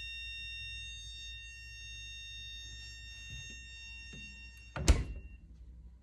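Electronic buzzer of a fridge door alarm circuit sounding a steady high-pitched tone, which cuts off about four and a half seconds in. Right after it stops comes a single loud thump.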